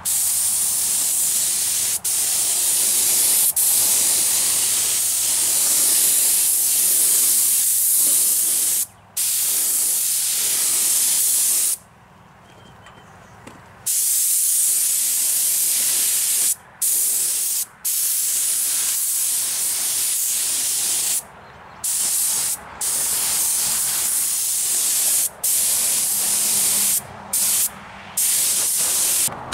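Aerosol can of Eastwood Diamond Clear spraying clear coat onto a bare, stripped aluminum grill shell. A loud, steady hiss that stops and starts again abruptly about a dozen times, with a longer pause of about two seconds near the middle.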